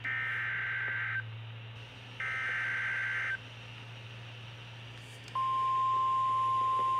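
Two bursts of Emergency Alert System (SAME) header data from a NOAA Weather Radio broadcast, each about a second long and a second apart, sounding as a harsh warbling screech. About five seconds in, the steady 1050 Hz weather radio warning alarm tone starts, announcing a new warning. A low hum runs underneath.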